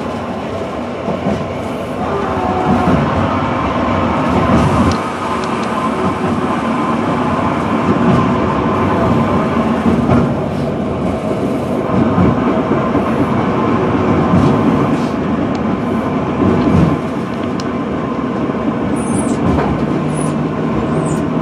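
Sapporo electric streetcar running along street track, heard from inside the driver's cab: steady wheel-on-rail running noise with a few brief knocks, and a few high squeaks near the end.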